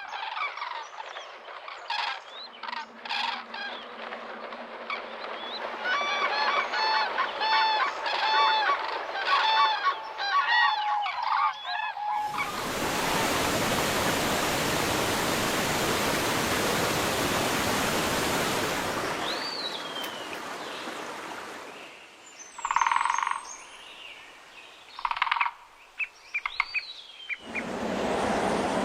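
Sequence of outdoor sounds joined by hard cuts: large birds calling with repeated honking calls, about two a second, then about seven seconds of steady rushing noise, then scattered calls with a couple of high falling whistles and short bursts.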